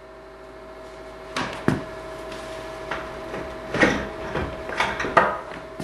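Irregular knocks and clunks, about half a dozen, as a heavy cast-iron radiator is worked into place against its pipe fitting on a wooden floor, over a faint steady hum.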